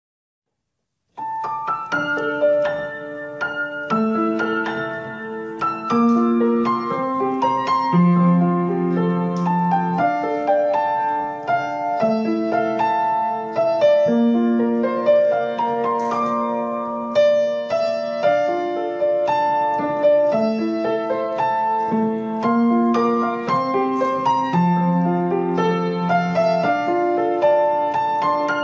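Solo piano music, a gentle, flowing piece with sustained arpeggiated notes, starting suddenly about a second in after silence.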